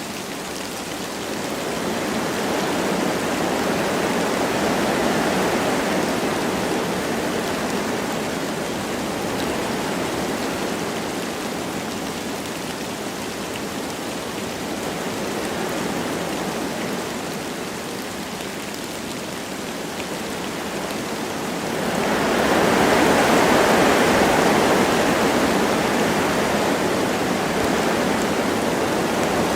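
Wind gusting through forest trees with light rain falling, a steady rushing that swells and eases, with a stronger gust about three quarters of the way through.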